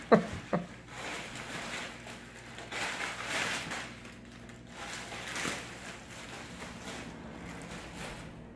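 Plastic bubble-wrap packing crinkling and rustling in scattered bursts as a baby handles it and crawls over it. Two short, sharp sounds near the start.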